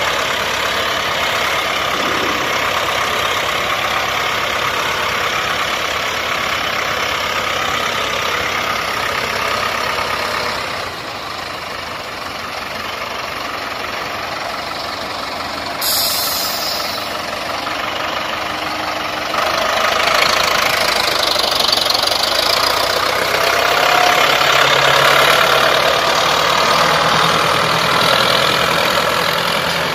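Ford 6600 tractor's three-cylinder diesel engine running steadily under load as it hauls a loaded trailer through mud. It grows louder about two-thirds of the way through.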